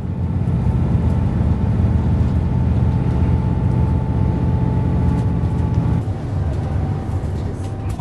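A vehicle engine running steadily with a deep, even hum; the low part of the hum shifts about six seconds in.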